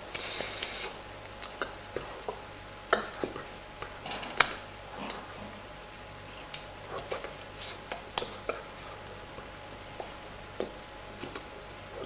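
Hands tapping, slapping and brushing against each other and the face while signing: scattered sharp taps and clicks, the loudest about four seconds in, with a short rubbing hiss at the very start.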